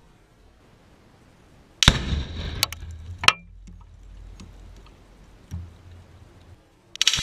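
A Tannerite explosion goes off suddenly and loudly about two seconds in and dies away over a second, followed by a few sharp cracks; a second blast starts near the end.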